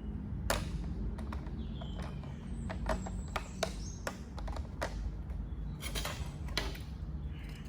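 Irregular light clicks and knocks of small manicure tools being handled and set into a toolbox compartment.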